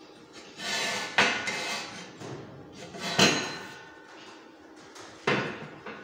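Steel pieces knocked against a welded steel frame: three sharp metallic clanks about two seconds apart, the middle one the loudest, after a short rattle of metal on metal.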